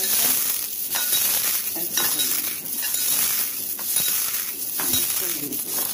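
Corn flakes being crushed by hand in a glass bowl: dry crackling crunches repeating about once a second as the hand squeezes the flakes down.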